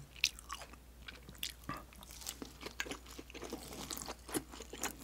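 Close-miked chewing of a pan-fried dumpling: a quiet run of short, irregular crunchy mouth clicks as the crisp skin and filling are chewed.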